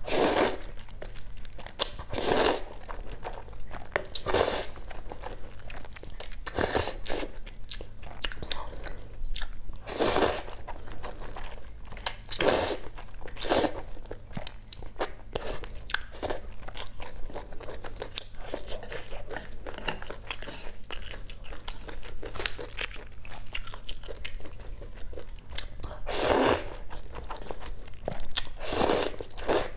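Close-miked noodle slurping and wet chewing: a loud slurp every few seconds as strands of saucy noodles are sucked in, with smacking and chewing between the slurps.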